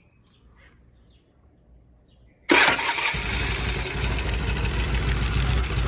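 Vintage British motorcycle engine started on the push-button electric starter. After a couple of seconds of near silence it catches abruptly about two and a half seconds in and runs steadily: the rebuilt starter, with its sheared woodruff key replaced, is working.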